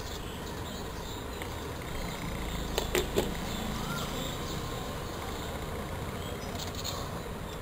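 A steady low hum and hiss of the workbench, with a quick cluster of sharp clicks about three seconds in, as of small tools handled on the phone.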